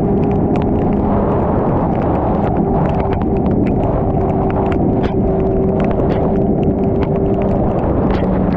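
Superbike cruising at a steady speed through heavy rain. Loud wind and rain noise buffets the microphone over a steady, unchanging engine hum, with scattered sharp ticks of raindrops striking the camera.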